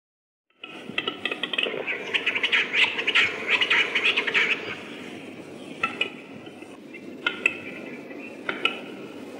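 Male western capercaillie (Tetrao urogallus) giving its display song, a run of dry clicks and rattling. It starts about half a second in, is densest for about four seconds, then thins to scattered single clicks.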